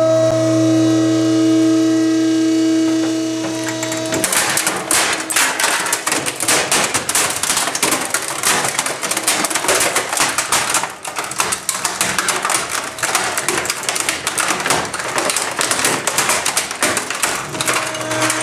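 A motor-driven compactor crushing a mid-1980s Panasonic stereo with a turntable and twin cassette decks. The machine hums steadily for about four seconds, then the stereo's case and parts give way in dense, continuous cracking and crunching as the ram presses down.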